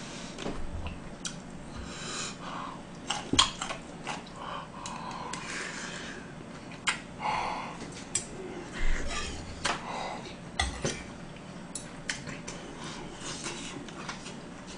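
Eating soup with metal cutlery: a spoon and chopsticks clicking and clinking against the bowl at irregular intervals, with short slurps from the spoon in between.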